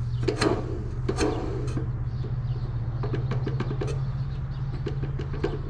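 Small clicks and taps of metal and plastic parts on a chop saw being handled and adjusted by hand, several a second, over a steady low hum.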